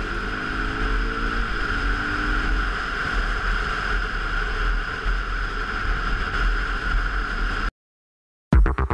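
Motorcycle engine and wind rushing over the camera while riding a dirt road: a steady, even drone. The sound cuts out for under a second near the end, and then electronic music with a pulsing beat starts.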